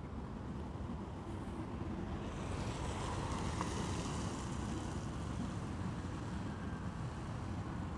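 Wind rumbling on an outdoor microphone, with a rushing noise that swells and fades about halfway through.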